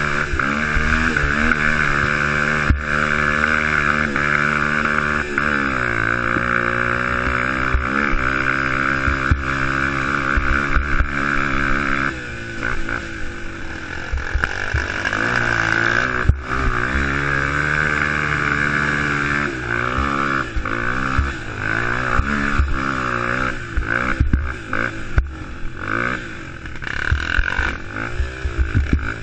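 Youth racing quad's engine running hard, its pitch rising and falling as the throttle is worked. It eases off about twelve seconds in, and near the end the throttle comes in short choppy bursts. A few sharp knocks come from bumps.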